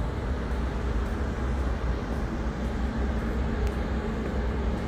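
Steady wind rumbling and buffeting on the microphone on the open deck of a cruise ship under way.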